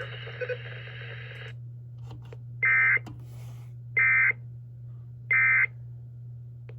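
NOAA Weather Radio through a receiver: three short bursts of SAME digital data tones, each about a third of a second and a little over a second apart. This is the end-of-message signal that closes the weekly test, heard over a steady low hum.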